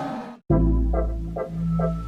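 Background electronic music, with a steady deep bass and short repeating synth notes, starting abruptly about half a second in. It follows a cut from the fading tail of a loud blaring sound.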